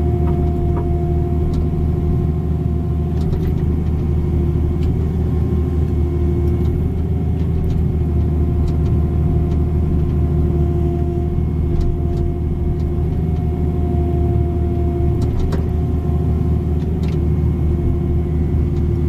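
Caterpillar 305 mini excavator's diesel engine running steadily under working load, a low hum with a steady whine over it that wavers slightly in pitch, and a few faint light clicks.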